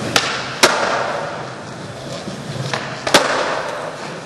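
Skateboard wheels rolling on a hard, smooth indoor floor, with three sharp clacks of the board hitting the floor: two close together in the first second and one about three seconds in.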